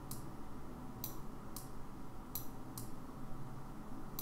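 Computer mouse clicking: about six short, sharp clicks at irregular intervals, over a faint low hum.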